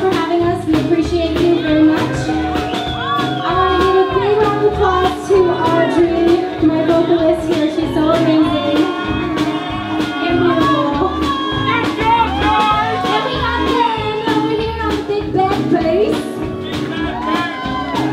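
Live band playing a song: drums keep a steady beat under a lead line that bends and wavers in pitch.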